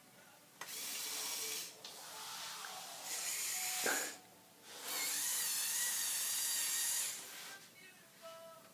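Small electric motors and plastic gears of a motorized Lego Technic Volvo L350F wheel loader running with a whirring whine, in three separate runs that each start and stop abruptly.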